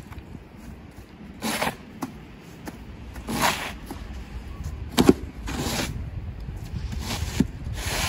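Snow shovels scraping and pushing wet snow across a driveway, a stroke every second or two.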